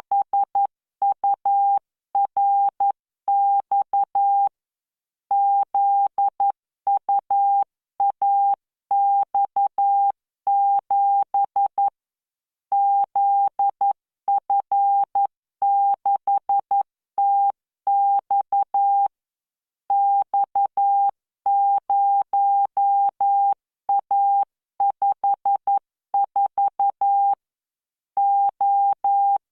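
Morse code practice tones from the Learning Morse training software: one steady beep keyed on and off in dots and dashes at 11 words per minute, with a short pause between groups every several seconds.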